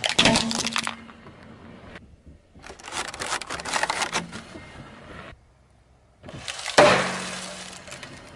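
Car tyre rolling over and cracking a hollow plastic toy figure, then crushing a foil balloon: crackling and crinkling foil, and a loud sudden bang about seven seconds in as the balloon bursts under the tyre.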